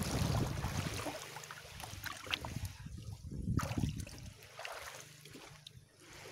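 Sea water splashing and sloshing around a person wading in the shallows, loudest at the start and fading away towards the end.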